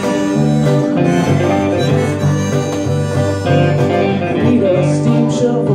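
Live band music: a harmonica, played into a hand-held microphone, takes the lead over acoustic and electric guitars.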